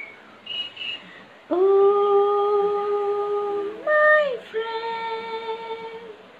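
A woman singing a Telugu song unaccompanied, holding long notes: one held for about two seconds, then a brief higher note that slides down, then another long held note.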